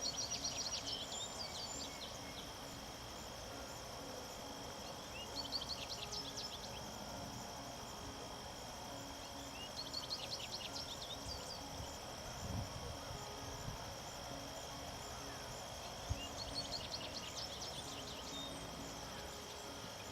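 A bird singing short phrases of rapid high notes four times, about five seconds apart, over a steady high-pitched drone of insects.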